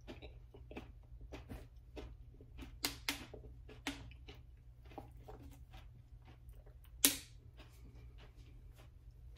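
Plastic bottle being handled: scattered small clicks and crackles, a few louder, the sharpest about seven seconds in, over a low steady hum.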